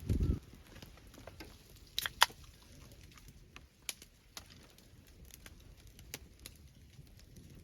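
Wood fire crackling: irregular sharp pops and clicks, the loudest pair about two seconds in, with a short low thump at the very start.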